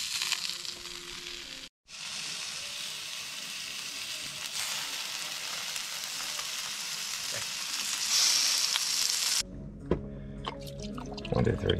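Sausages, a fish fillet and Brussels sprouts sizzling on the hotplate of a portable gas barbecue: a steady hiss, with a brief gap about two seconds in. Near the end it cuts off abruptly, giving way to music and clinks as a drink is poured into a cup of ice.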